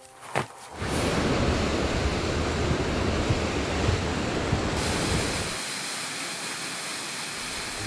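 Two footfalls on wooden trail steps, then the steady rush of a waterfall, at first with a deep rumble that drops away about five and a half seconds in, leaving a lighter, even hiss of falling water.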